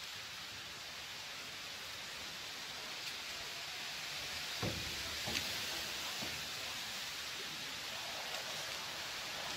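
Steady outdoor hiss of wind through reeds and over rippling water, with a few soft low knocks about halfway through.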